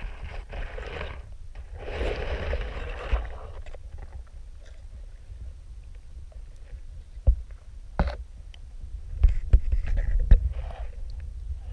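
Muffled underwater sound through a GoPro's waterproof housing: a low rumble throughout, two bursts of rushing hiss in the first few seconds, then several sharp knocks in the second half as the housing bumps against the stony, weedy bottom.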